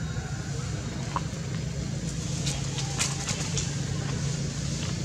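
Steady low drone of a running engine, with a few faint clicks about two and a half to three and a half seconds in.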